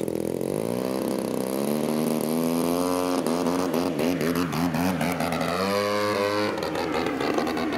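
Radio-controlled aerobatic model plane's motor and propeller running hard for takeoff. The pitch rises over the first second and a half as the throttle opens, then wavers as the plane climbs away and turns, with a brief higher surge near the end before it falls off.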